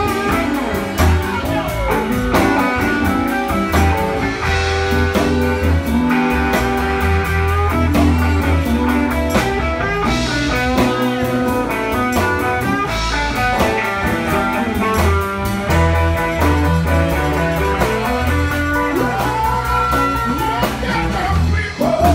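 Live blues band playing an instrumental: electric guitar lead over a steady drum beat.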